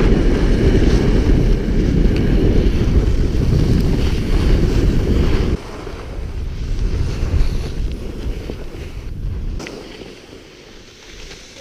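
Wind buffeting a GoPro's microphone while skiing downhill, a heavy low rush with hiss. It drops abruptly about halfway through, then fades.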